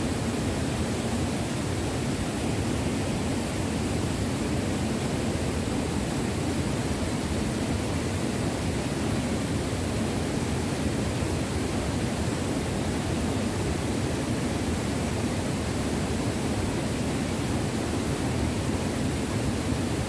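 Water rushing down the rocky cascades of a waterfall: a steady, unbroken rush of white water.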